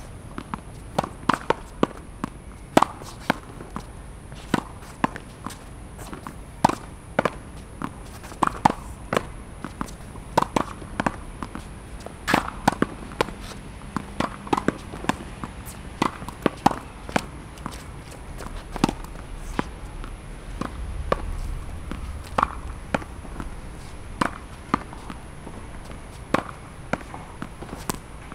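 Tennis ball being hit with a racket against a practice wall, over and over: sharp pops of ball on strings and ball on wall, one or two a second in an uneven rally rhythm.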